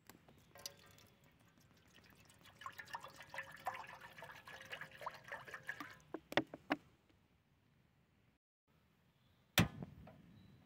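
Water poured from a plastic bottle into an empty aluminium mess tin, splashing and ringing against the metal for about five seconds, then a few knocks. Near the end comes a single sharp click.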